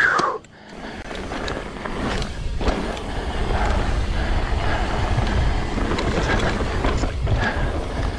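Mountain bike riding along a dirt-and-rock singletrack: a steady rush of wind buffeting the camera microphone over tyre noise on the trail, with a few small knocks from the bike. There is a short loud sound right at the start.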